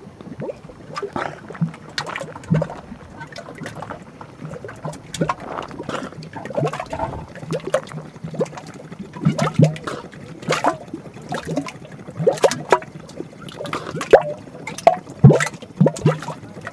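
Mud volcano bubbling: an irregular run of gurgles and wet plops as gas bubbles burst through the mud slurry in its vent.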